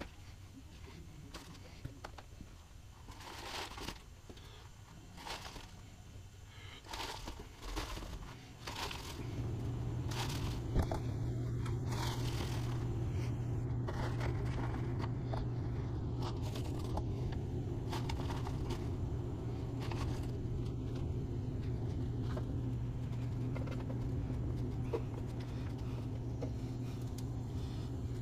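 Paper crinkling and dry material rustling as bedding is poured through a rolled paper funnel into a plastic worm bin. About nine seconds in, a steady low hum starts and continues under the occasional rustles.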